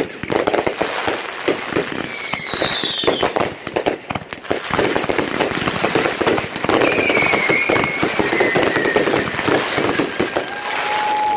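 Fireworks going off in rapid succession, a dense run of crackles and pops. High falling whistles cut through about two seconds in and again past the middle, and a steady whistle sounds near the end.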